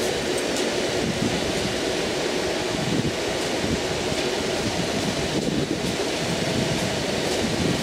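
Steady rushing noise of wind on the microphone, with a faint machine hum underneath that fades about halfway through.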